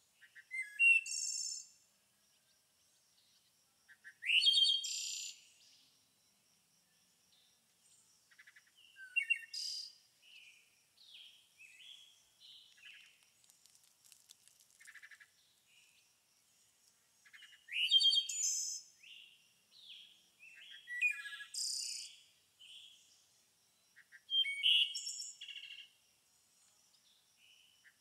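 A songbird singing in short, high twittering phrases every few seconds, some opening with a quick rising sweep, with softer scattered chirps between them.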